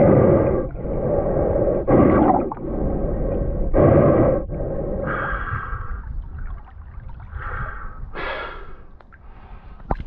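A snorkeler breathing heavily through a snorkel, a loud breath about every two seconds, with water sloshing around the camera.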